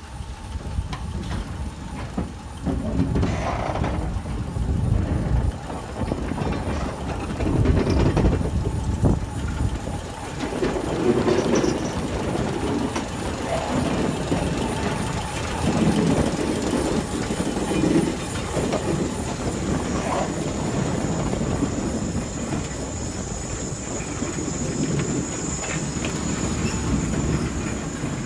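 Crane car W3 and R17 subway car 6688 rolling slowly over track on a trestle: steel wheels clunk and rumble irregularly over the rail joints. A thin high whine comes in near the end.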